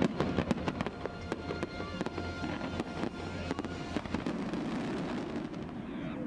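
Fireworks display: a rapid string of sharp bangs and crackles, thickest in the first three seconds and thinning toward the end.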